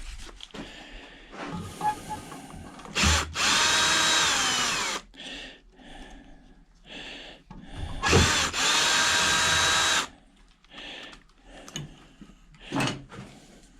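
Cordless power drill running in two bursts of about one and a half seconds each, its motor whine dropping as it winds down at the end of each. Small clicks and knocks of handling come between the bursts.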